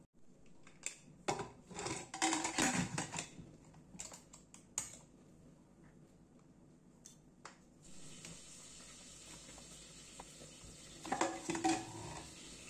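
Metal clatters, knocks and scrapes of a Prestige pressure cooker's lid being fitted and locked onto the pot, then a few clicks. Another short burst of knocks comes near the end as the closed cooker is set down, over a faint steady hiss.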